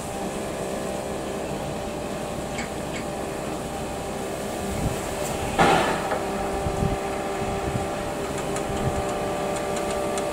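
Air compressor on a steam motor coach running with a steady, even hum, a short burst of hiss a little past halfway and a few light metallic clicks.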